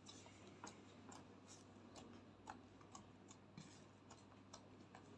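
Faint, irregular little clicks and pops of slime being pressed and squeezed by hand against a glass dish.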